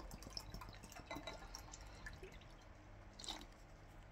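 A drink being poured from a bottle into a glass, faint trickling and dripping, with a light knock about three seconds in.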